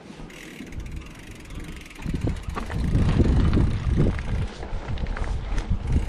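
Wind buffeting the microphone: an irregular low rumble that swells about two seconds in, is loudest in the middle and then eases, with a few faint clicks.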